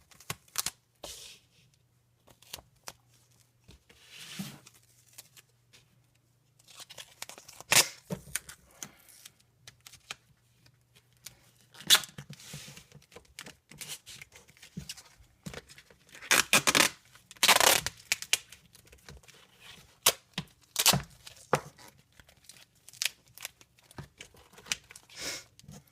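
Duct tape being pulled off the roll and torn off again and again, with sticky rasping stretches and sharp rips between short pauses.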